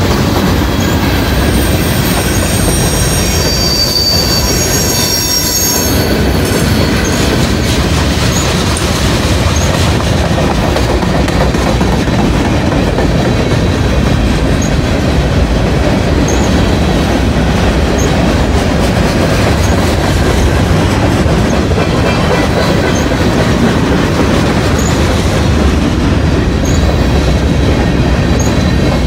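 Cars of a mixed manifest freight train rolling past close by, with a steady rumble and rattle of steel wheels on rail. High wheel squeal sounds over the first several seconds and fades out about six seconds in.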